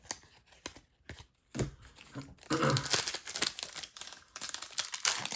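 A few light taps of cards being handled, then, about two and a half seconds in, the plastic wrapper of a trading-card pack crinkling and tearing as it is ripped open.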